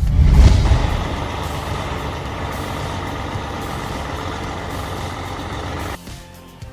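Heavy machinery running loud: a sudden heavy onset in the first second, then a steady mechanical noise that cuts off abruptly near the end.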